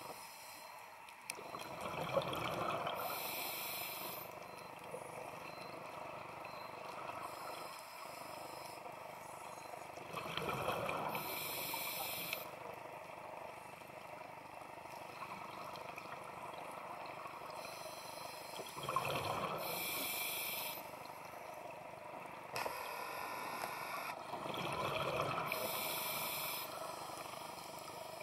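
Scuba diver's regulator breathing underwater: slow breaths about four times, each a hiss of inhaled air and a rush of exhaled bubbles, every several seconds.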